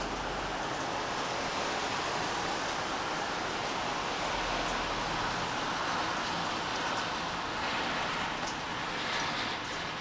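Steady rain falling, an even hiss that swells a little in the middle.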